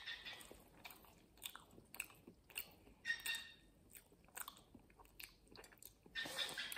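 Close mouth sounds of a person biting into and chewing a piece of pastry: a run of small clicks and crunches, with louder clusters of chewing about three seconds in and again near the end.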